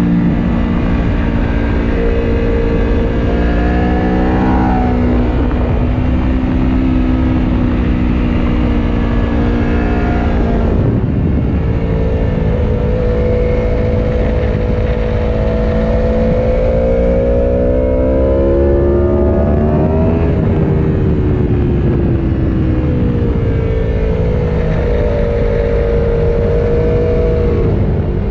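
Aprilia Tuono V4 Factory's V4 engine heard onboard at speed. Its pitch climbs as it pulls hard and drops sharply when the throttle is shut for braking, about ten seconds in and again near twenty seconds, over a constant low rumble of wind.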